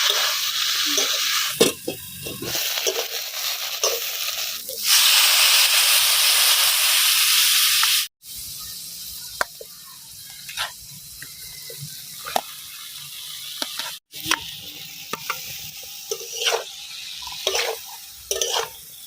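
Egg curry frying in a pan: the oil sizzles loudly while it is stirred. After a cut about eight seconds in, the sizzle is much fainter, with scattered spoon clicks and scrapes against the pan.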